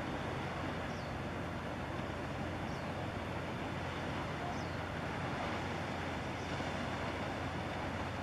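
Steady outdoor background rumble with a constant low hum, and a faint short high chirp repeating about every two seconds.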